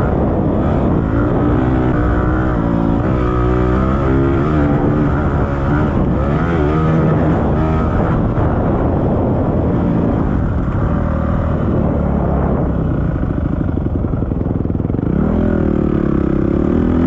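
Dirt bike engine revving as the bike is ridden, its pitch rising and falling over and over in the first half, steadier for a while, then climbing again near the end.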